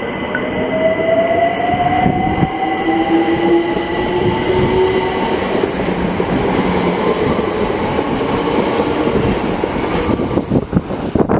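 Electric multiple-unit train accelerating, its traction motors giving a whine that rises slowly in pitch over a steady rumble of wheels on rails. Gusty wind buffets the microphone near the end.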